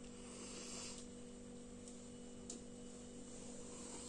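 Quiet room tone with a steady low electrical hum and a faint click about two and a half seconds in.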